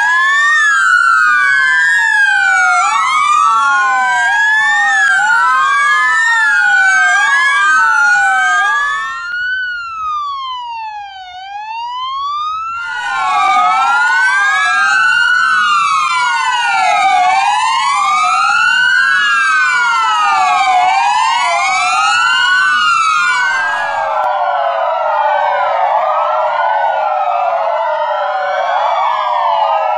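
Several parked police cars' sirens wailing at once, each rising and falling about every two seconds and overlapping out of step. Around ten seconds in they thin to a single quieter siren for a few seconds, and near the end a larger, denser chorus of sirens takes over.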